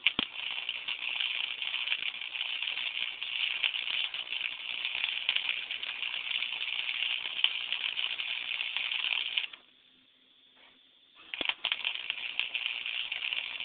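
Wire-feed welder arc crackling steadily; the arc breaks off about nine seconds in and is struck again about two seconds later.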